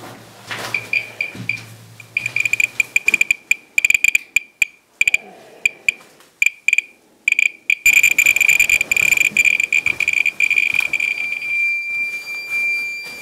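Handheld Geiger survey meter (Thermo Scientific RadEye B20) chirping with each detected count. The high-pitched chirps come in irregular bunches, grow faster and denser, and about three quarters of the way in merge into one continuous tone: a very strong radiation field, close to 2 mSv/h.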